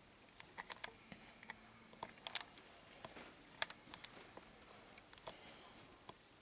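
Quiet room broken by faint, irregular clicks and ticks, about a dozen of them, the sharpest a little past three and a half seconds in.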